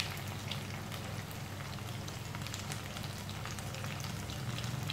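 Chana saag pakoras shallow-frying in a little oil in a kadai: the oil sizzles steadily with many small crackling pops, over a steady low hum.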